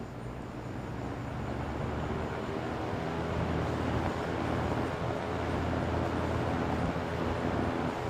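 Circa-1978 Western Auto Citation wide-blade box fan (a Lasko 3714) spinning up on its high setting: a whoosh of moving air over a low motor hum. It grows louder over the first few seconds, then holds steady.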